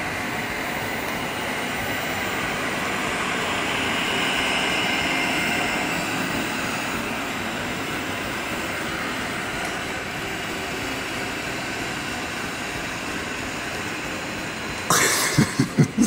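Robot vacuum running: a steady whir of its motor and brushes, swelling slightly about four seconds in. Near the end, a quick run of four or five loud knocks.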